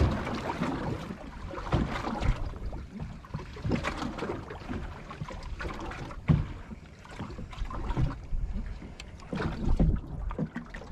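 Small boat drifting on choppy water: water slapping at the hull, with wind buffeting the microphone and irregular knocks, the sharpest about six seconds in.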